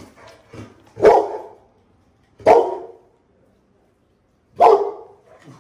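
Pit bull-type dog barking, three single barks about a second and a half to two seconds apart.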